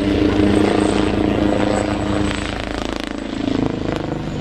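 Eurocopter Tiger HAD attack helicopter in flight, its main rotor chopping rapidly with a steady hum that fades about halfway through.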